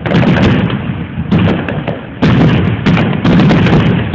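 Fireworks exploding overhead: a rapid series of about five loud booms, each with a sharp crack followed by a low, rolling rumble of echo.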